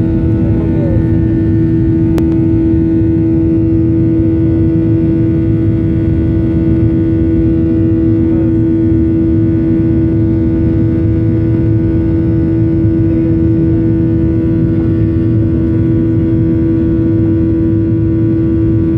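Airliner jet engines running at high thrust during the climb just after takeoff, heard from inside the cabin: a loud, steady drone with a strong steady hum and several fainter tones above a low rumble.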